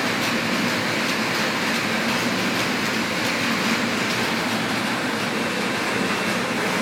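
Steady, even running noise of a moving vehicle, heard from inside it.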